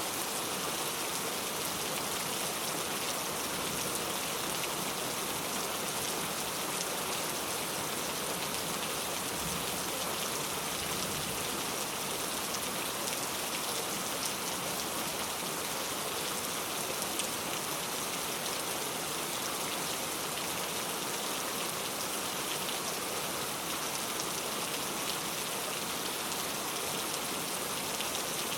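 Steady rain falling on a surface, an even hiss of many fine drops with no change in strength.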